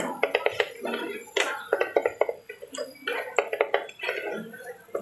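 Two spatulas scraping and clattering against a nonstick electric pan as fried rice is tossed and stirred, a quick run of short knocks and scrapes.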